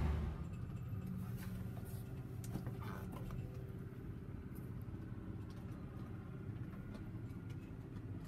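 Low, steady hum of a tractor's diesel engine idling, with a few light clicks and taps in the first few seconds.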